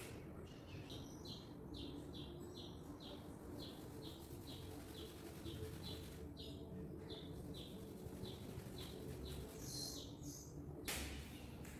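A bird calling a steady series of short, high chirps, about two and a half a second, with a brief pause partway through. A short rush of noise comes near the end.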